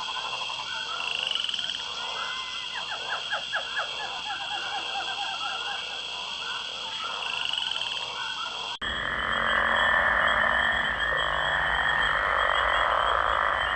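Frog chorus: many frogs calling in rapid pulsed trains, with a steady high trill behind them. About nine seconds in it cuts abruptly to a denser, hissier chorus.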